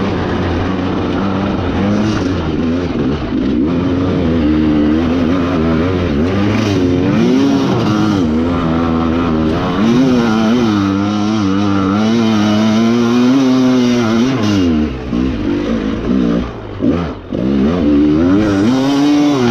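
Enduro motorcycle engine revving hard under load on a steep climb, its pitch rising and falling constantly with the throttle. It drops off briefly twice near the end, then picks up again.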